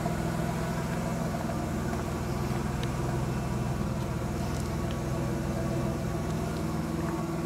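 Plymouth Voyager's 3.3-litre V6 idling steadily, a low even drone that stays level throughout.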